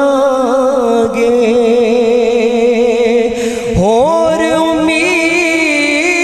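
A male naat reciter singing a Punjabi naat into a microphone, holding a long wavering note, then sweeping up in pitch into a new held phrase about four seconds in.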